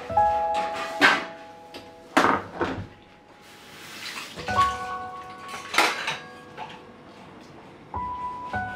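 Steel pots, dishes and glassware clinking and knocking as they are handled and washed at a steel sink, with a tap running briefly near the middle, over soft background music.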